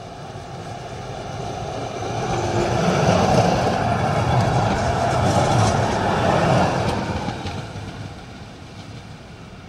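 Duewag articulated tram passing close by. The running noise of its wheels on the rails and its motors swells as it approaches, is loudest for a few seconds as it goes past with a few clicks from the wheels on the track, then fades as it moves away.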